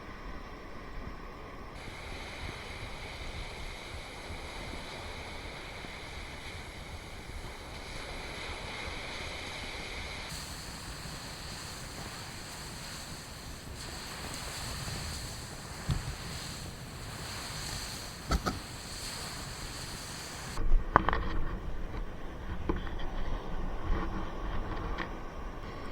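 Strong wind and surf on an open beach, a steady noise with wind buffeting the microphone. A few short knocks come through late on.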